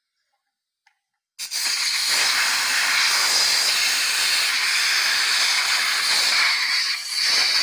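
Compressed air hissing loudly and steadily from an air-compressor hose's air chuck pressed onto an air tank's fill valve. It starts suddenly about a second and a half in, dips briefly near the end, then cuts off.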